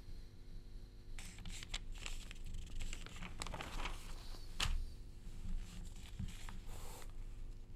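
Newspaper pages rustling as they are handled and turned on a desk close to a microphone, with scattered light clicks and knocks. The sharpest click comes about four and a half seconds in.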